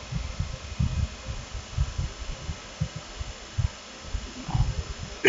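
Irregular dull thumps of typing on a computer keyboard, a quick uneven series of key strokes.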